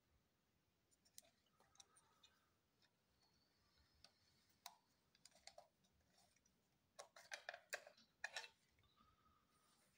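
Faint clicks and small scrapes of a FED 5 35 mm rangefinder camera body being handled, as its back-cover lock is worked and the back is eased off, with a quick run of louder clicks and scrapes a little after halfway.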